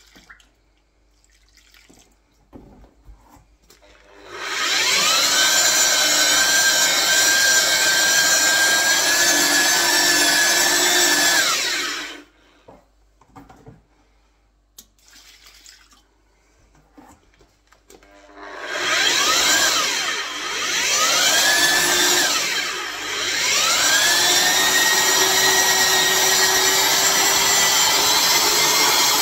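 Electric paddle mixer stirring tile adhesive in a bucket. About four seconds in, its motor spins up with a rising whine and runs steadily, then cuts off after about seven seconds. It starts again, its pitch dipping twice as the trigger is eased, then runs steadily once more.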